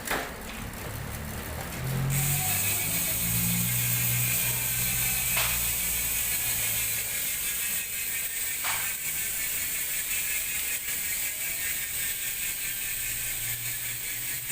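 Hope Pro Evo 2 rear hub freehub buzzing steadily as the wheel spins, its four pawls ratcheting fast over the drive ring, freshly overhauled. Two sharp clicks come through it, about five and nine seconds in.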